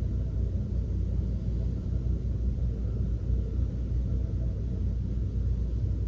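Steady low rumble of room background noise, even throughout with no distinct events.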